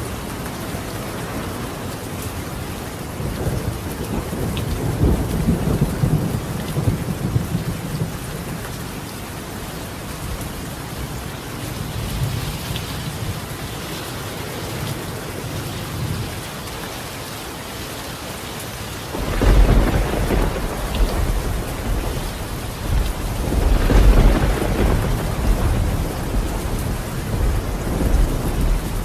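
Steady rain falling on a roof with thunder. A low rumble swells a few seconds in, then a loud thunderclap breaks suddenly about two-thirds of the way through and rolls on with a second swell a few seconds later.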